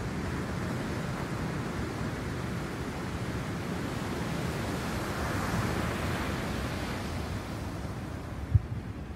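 Pacific Ocean surf: a steady rush of breaking waves over a low rumble, swelling about five to six seconds in. A brief low thump near the end.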